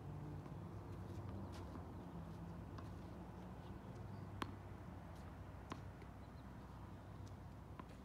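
Quiet outdoor hard-court ambience: a low steady hum with a few faint, sharp knocks scattered through it, the clearest about four and a half seconds in.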